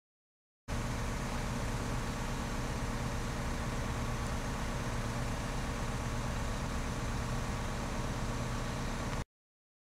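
Steady low machine hum like an idling engine, unchanging in pitch. It cuts in abruptly about a second in and cuts off abruptly near the end.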